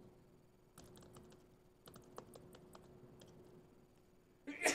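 Laptop keyboard typing: scattered quiet key clicks over a faint steady hum, with one short louder noise near the end.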